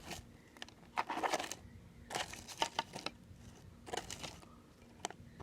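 Hands rummaging through small objects such as buttons and odds and ends in a sewing machine drawer: a handful of short, scattered rustles and light clicks.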